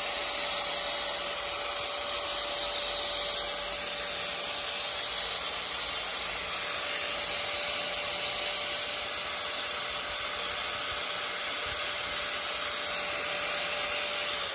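Makita 9556 angle grinder running free at full speed, a steady whine over even motor and fan noise. It runs very smoothly.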